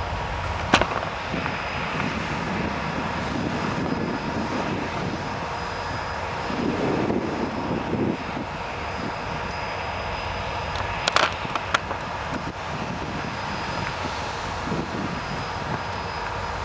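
Steady distant engine drone with a thin steady whine over it. There is a sharp click about a second in and a few knocks around eleven seconds.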